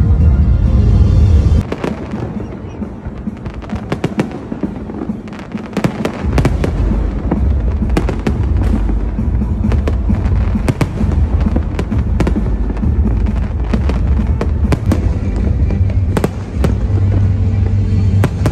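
Fireworks going off in a rapid, irregular series of sharp bangs and crackles, starting a couple of seconds in, over loud music with a heavy bass.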